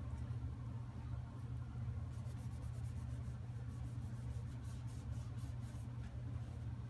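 A cloth rag rubbing and buffing beeswax paste into a maple-dowel pipe stem: a run of quick, soft rubbing strokes from about two seconds in, over a steady low hum.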